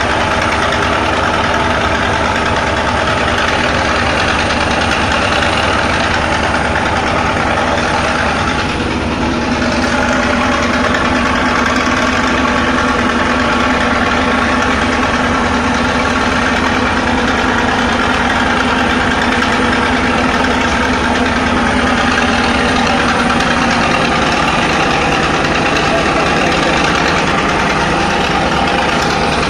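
Engines of a river passenger launch running steadily under way: a loud, even drone with a steady hum. A lower hum comes in about nine seconds in and drops away again near the end.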